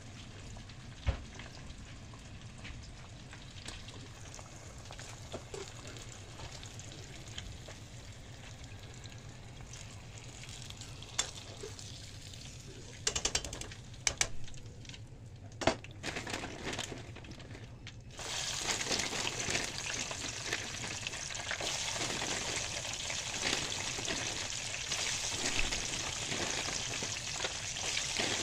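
Hot oil sizzling in a pot as food deep-fries: faint at first with a few sharp clicks, then loud and steady from about two-thirds of the way through, with French fries bubbling in the oil.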